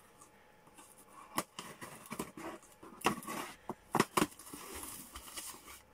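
Scissors cutting the packing tape on a cardboard shipping box: a few irregular sharp snips and clicks, with cardboard knocks and rustles between them.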